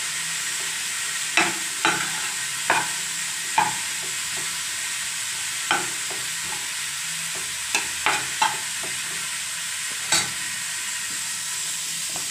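Dried fish frying in masala in a nonstick pan with a steady sizzle. A spatula scrapes and knocks against the pan about nine times at irregular intervals as the pieces are stirred and turned.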